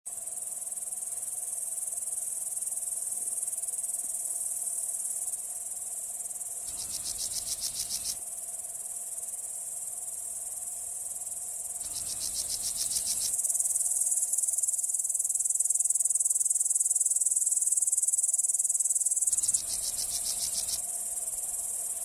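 Insect chorus: a steady, high-pitched trill, joined three times by a second or so of rapid pulsed chirping.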